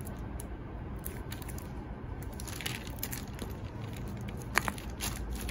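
Hands handling a leather sling bag over tissue paper: soft rustling and crinkling, with a single sharp click about four and a half seconds in.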